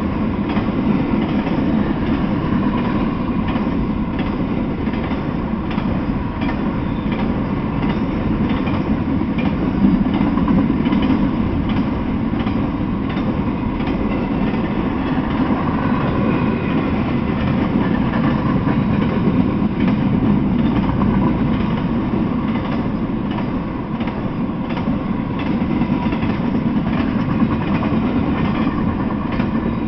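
Freight train rolling past: a steady rumble of steel wheels on the rails, with frequent clicks and clacks as the cars' wheels cross the rail joints.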